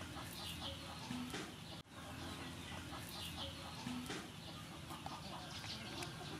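Faint, scattered bird calls over a low, steady background hum.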